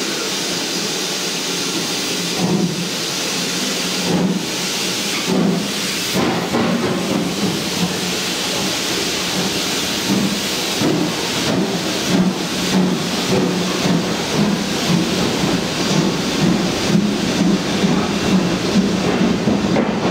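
Steam locomotive hissing steam, then setting off with exhaust beats that begin slow and irregular and come quicker and more even as it gets under way.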